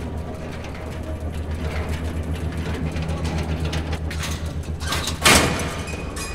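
Low mechanical hum from a film soundtrack, steady and pulsing slightly, broken about five seconds in by a sudden loud crash-like burst that dies away quickly.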